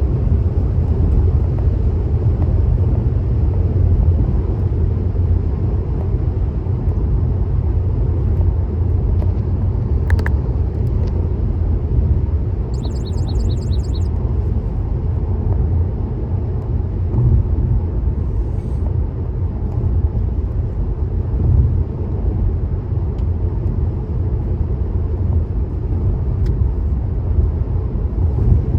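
Car driving at speed on a motorway: a steady low rumble of tyre and road noise. A brief click about ten seconds in.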